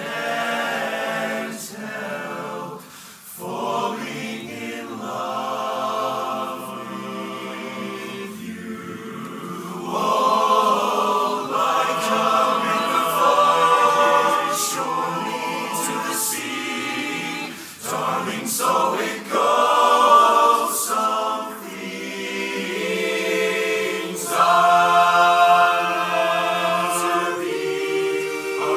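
Men's barbershop chorus singing a cappella in close harmony, sustained chords swelling and falling phrase by phrase, with brief breaks between phrases.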